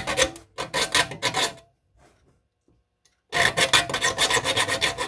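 Triangle file rasping across the teeth of a dull hand saw, sharpening them: a run of quick file strokes that stops near the second mark, a pause, then another run of strokes from past the middle onward.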